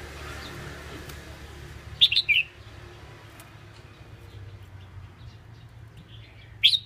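Caged red-whiskered bulbul giving two short bursts of loud chirping notes, about two seconds in and again near the end, over a low steady background hum.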